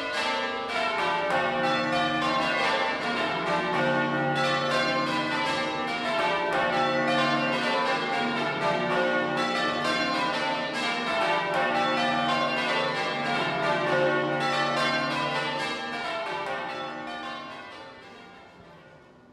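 Church tower bells rung full-circle in change ringing: a rapid, even succession of bell strikes sounding one after another, fading out over the last few seconds.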